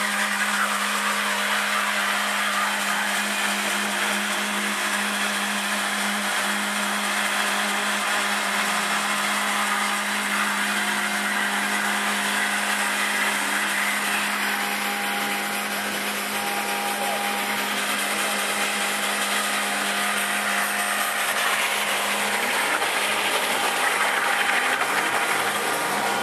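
BMW 3 Series (E36) doing a burnout: the engine is held at high revs while the rear tyres spin and squeal, a steady loud hiss with the engine note under it. The engine note shifts near the end.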